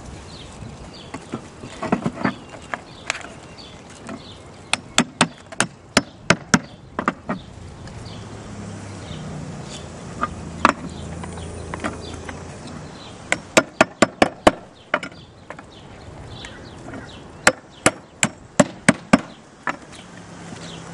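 Hammer driving 10-penny nails through a ridge vent into the top course of flat roof tile: runs of sharp blows, several a second, in separate groups with pauses between.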